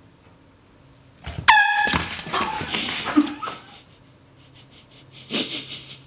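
A short, loud blast from a handheld air horn about a second and a half in, followed by a second or two of noisy scuffling clatter and another brief noisy burst near the end.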